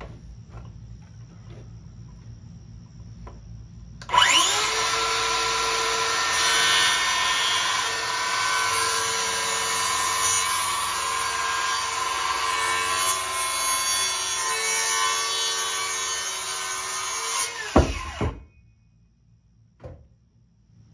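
Electric power saw cutting wood: the motor spins up with a rising whine about four seconds in, runs steadily through the cut for about thirteen seconds, then is switched off and winds down with a falling pitch.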